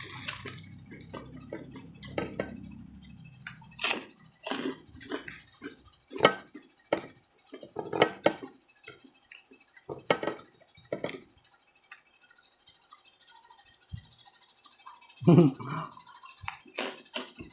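Close-miked chewing and lip smacks of someone eating a pork chop with rice: irregular wet clicks and smacks, with a louder one about fifteen seconds in.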